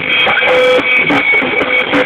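Instrumental music with a steady beat and sustained pitched notes.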